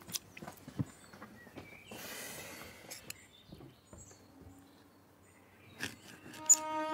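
Cutlery clicking now and then against plates as someone eats, with a brief rustling noise about two seconds in. String music begins near the end.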